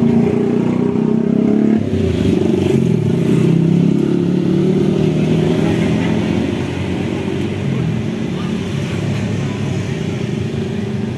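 A motor scooter's engine running loud and close, its pitch shifting and dropping a few seconds in and then fading as it passes, leaving a quieter traffic hum.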